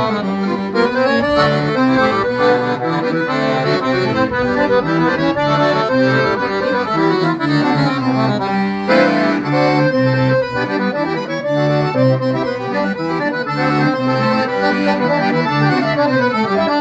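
Accordion (sanfona) playing a melody over a line of lower bass notes.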